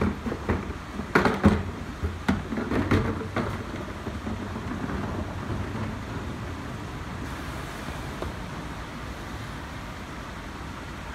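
Garbage truck at work: a quick run of clanks and bangs over the first three seconds or so, then the truck running with a steady rumble.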